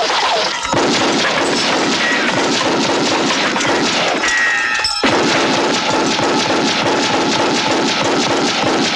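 Movie gunfight sound effects: rapid handgun fire, several shots a second, mixed with impacts and crashes. The shooting thins out briefly about four seconds in, then picks up again.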